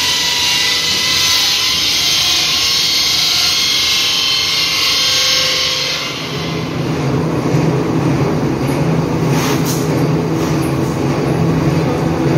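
Steady din of PVC pipe extrusion machinery running. A loud high hiss over it stops about six seconds in, leaving a steady low hum.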